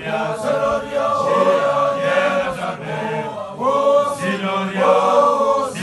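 Group of makoloane initiates chanting together without instruments. The singing comes in short sung phrases, each one to two seconds long, with brief breaks between them.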